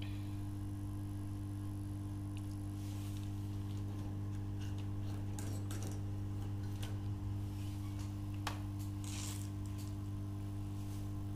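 Light clicks and rattles of hands handling circuit boards and small electronic parts on a workbench, over a steady low electrical hum.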